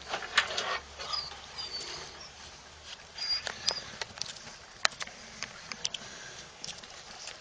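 Young puppies scuffling about on dusty ground, with rustling and scattered clicks of close handling, and a few short high-pitched squeaks about a second in and again midway.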